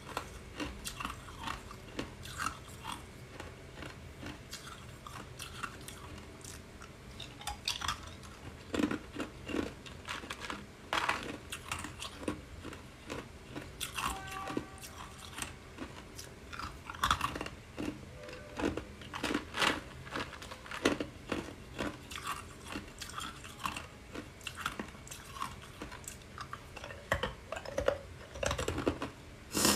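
Clear ice cubes bitten and chewed, many sharp, irregular crunches of ice breaking between the teeth.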